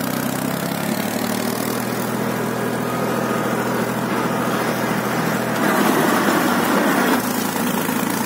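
HMT 3522 tractor's diesel engine running steadily as the tractor is driven, growing louder for a second or so past the middle.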